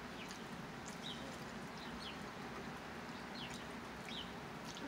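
Small birds chirping outdoors: short, high, quickly falling calls about once or twice a second, over a steady low background hum.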